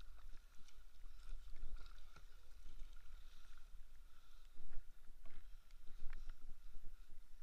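Kayak paddling: the paddle blades dipping and pulling through the water, with irregular splashes and drips coming off them.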